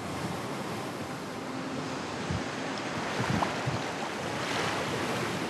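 Small waves breaking and washing up a dark sand-and-pebble beach: a steady surf hiss that swells near the end. A few low thumps of wind on the microphone come midway.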